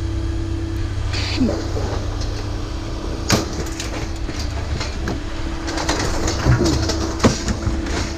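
A steady engine hum with scattered sharp clanks and knocks, the loudest about three seconds in and twice near the end, typical of scrap metal being handled in a scrap yard.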